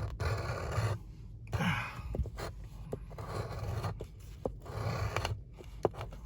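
A coin scraping the coating off a scratch-off lottery ticket in four short bursts of scratching, with a few light taps in between.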